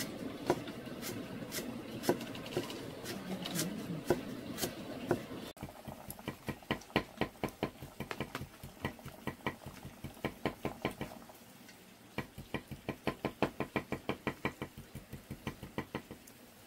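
Knife chopping on a wooden cutting board in quick, even strokes, about four a second, with a short pause partway through. The first few seconds hold irregular knocks and clatter of kitchen handling.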